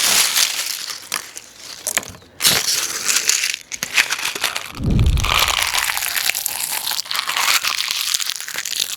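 A handful of small leaves being crunched and crushed by hand right up close to a lavalier mic, a dense crackling crunch that eases off briefly around two seconds in. There is a low thump about five seconds in.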